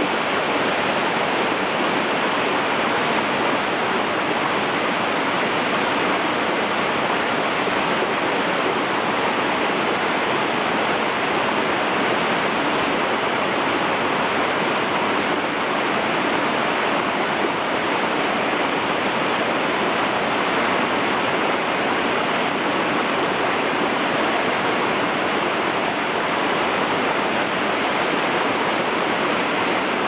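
Small waterfall on a mountain stream pouring over rock into a plunge pool: a steady, even rush of falling water.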